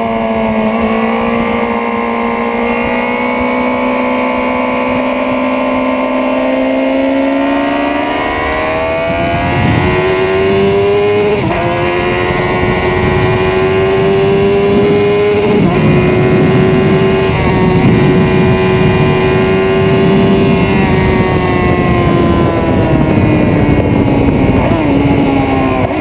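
Onboard sound of a sportbike's engine at speed on a race track. The revs climb steadily, with a brief drop about eleven seconds in, hold high for several seconds, then fall away near the end as the rider eases off.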